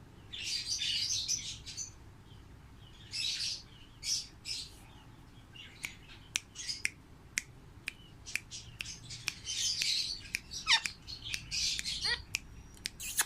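Pet parrot squawking in repeated harsh bursts, with many sharp clicks in between and a couple of short whistled glides near the end.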